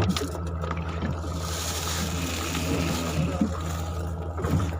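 Steady low hum of a fishing boat's engine, with a knock at the start and a rush of water sloshing or splashing from about a second in, lasting roughly two seconds.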